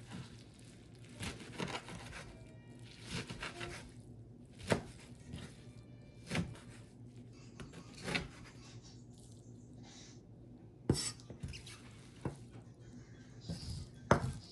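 Dishes and utensils knocking and clinking, with a sharp knock every second or two and softer handling noises between them, over a low steady hum.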